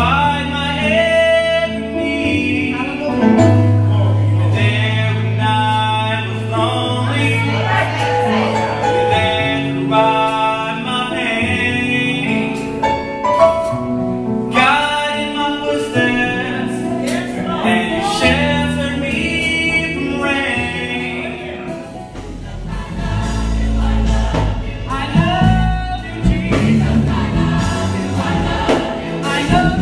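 Live gospel praise music: a male lead singer with backing vocalists over sustained keyboard chords and bass. About two-thirds of the way through, a heavier, deeper bass comes in under the singing.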